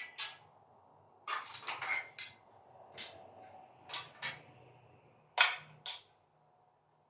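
Metal door closers being handled and put down, knocking against each other in a string of sharp clanks: a quick cluster about a second in, then single knocks spaced out until about six seconds in.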